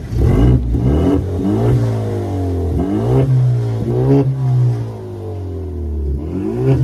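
Kia Stinger's turbocharged four-cylinder engine with an aftermarket mid-pipe exhaust, revved in about six quick blips, the pitch climbing and falling back to idle each time.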